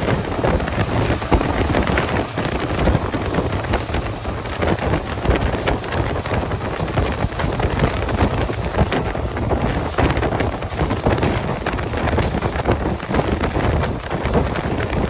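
Wind buffeting the microphone from a passenger train running at speed, over the steady rumble of the coach on the track.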